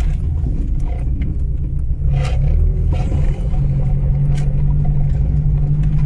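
Mitsubishi Sigma's Astron 2000 four-cylinder engine and exhaust drone steadily while driving, heard from inside the car, with a couple of sharp knocks from the rattly muffler. The engine is running with its vacuum advance disconnected, and the note firms up slightly about halfway through.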